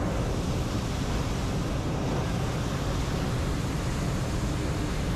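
Hot air balloon's propane burner firing: a steady, loud rushing blast of flame with no break.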